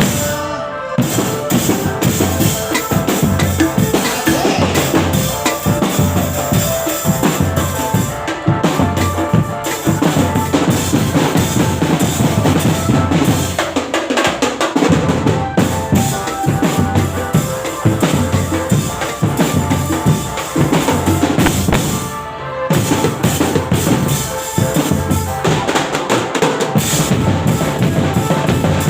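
Loud drum-led music, with a thumping bass drum and snare keeping a steady beat under a melody line. The music drops out briefly a few times.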